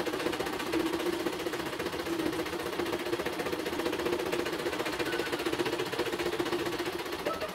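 Embroidery machine running, its needle mechanism clattering in a fast, even rhythm over a steady motor hum, as on a stitching test.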